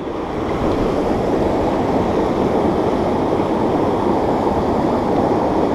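Steady rush of river water flowing over rocks, an even noise with no breaks.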